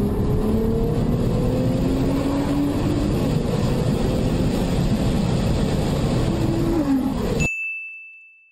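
Car engine and road noise heard inside the cabin, the engine note rising slowly as the car accelerates. About seven and a half seconds in the road noise cuts out, leaving a high steady tone that fades away.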